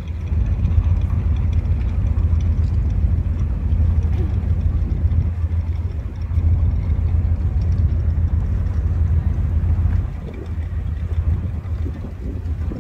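A boat's engine drones steadily under wind rushing over the microphone on deck. It eases a little about ten seconds in.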